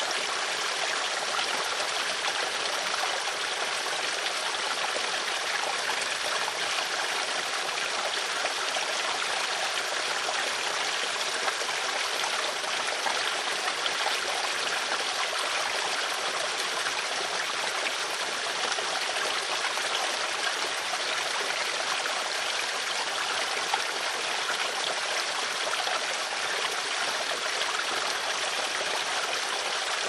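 Steady sound of running water, as of a small stream.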